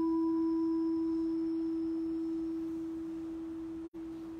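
Buddhist bowl bell ringing out after a single strike: one clear, steady tone with fainter higher overtones, slowly fading. It cuts out for an instant near the end.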